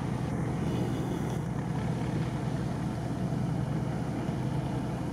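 A vehicle engine running steadily: a low, even hum with no change in speed.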